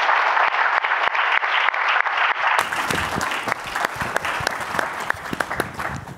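Audience applauding: dense clapping that thins out over the last few seconds and dies away at the end.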